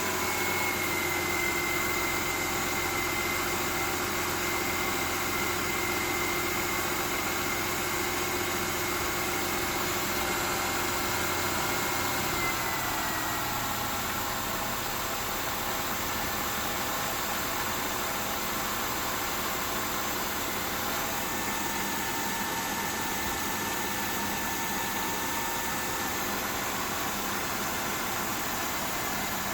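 Mercedes-Benz E350 W212's M272 3.5-litre V6 idling steadily, with the tapping noise the owner is trying to trace. About thirteen seconds in, its steady whine drops slightly in pitch as the idle settles a little lower.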